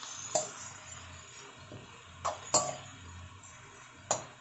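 Metal spatula clinking and scraping against an aluminium wok while chicken pieces are turned in a little oil: about four sharp clinks, two of them close together around the middle.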